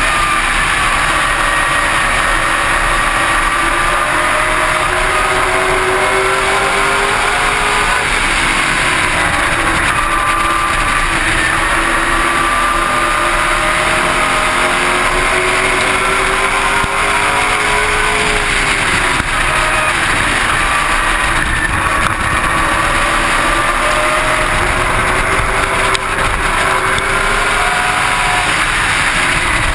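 Super Late Model race car's V8 engine running hard at racing speed, heard from on board the car. Its pitch rises and falls lap after lap as it accelerates and lifts through the turns, over a constant rush of wind and road noise.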